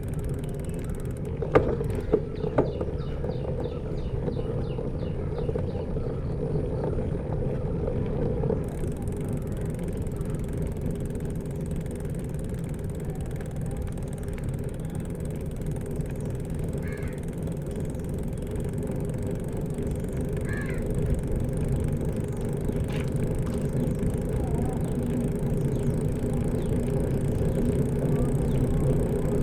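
Steady low rumble of a motor vehicle engine running alongside bicycle road noise, growing louder near the end. A few sharp clicks and a short run of light ticks sound a few seconds in.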